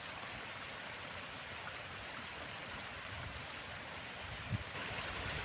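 Steady hiss of running water, with one faint knock about four and a half seconds in.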